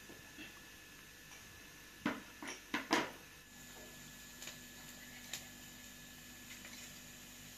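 Dishes and bowls knocking and clinking four times in quick succession about two seconds in, then a few faint ticks over a faint steady low hum.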